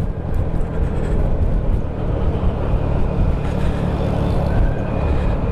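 A car's engine and road noise while driving, a steady low rumble.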